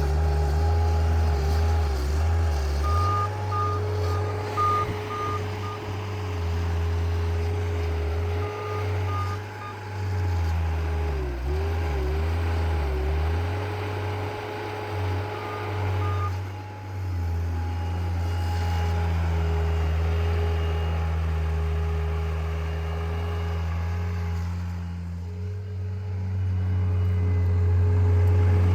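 John Deere skid steer's diesel engine running steadily, its pitch dipping briefly now and then under load. Its backup alarm beeps in three short runs as it reverses.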